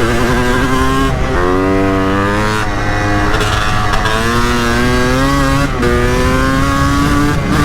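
Honda CR250's two-stroke single-cylinder engine under hard acceleration, the revs climbing and then dropping at each upshift, several times in a row.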